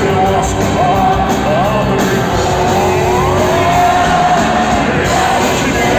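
Live rock band playing loud, with a gliding melody line over the band and one long held note in the middle.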